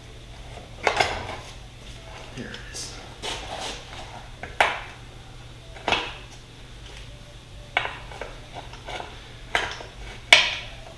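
Metal hand tools clinking and knocking against dirt bike parts: about six sharp metallic strikes at irregular intervals, with softer scraping between them, the loudest near the end.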